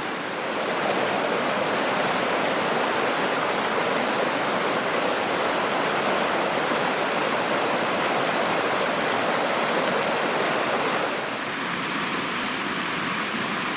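A babbling brook's water running over rocks, a steady rushing. It drops a little in level and depth about eleven seconds in.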